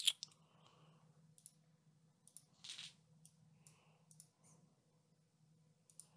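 Computer mouse clicks: about a dozen short sharp ticks at irregular intervals, the first one loudest, over a faint steady low hum. There is a short soft rush of noise about two and a half seconds in.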